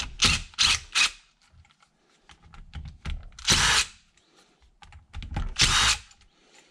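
Cordless impact driver with a hex bit working Allen head bolts loose from a rusty lathe chuck's plate: three short bursts in the first second, then a longer burst about three and a half seconds in and another about five and a half seconds in.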